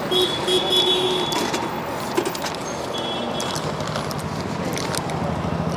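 Roadside highway traffic: a steady hum of passing vehicles, with a few scattered clicks.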